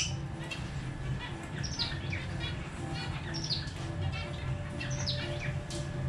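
Pet lovebirds chirping: short, high, sharp chirps in small clusters every second or so, over a low steady hum.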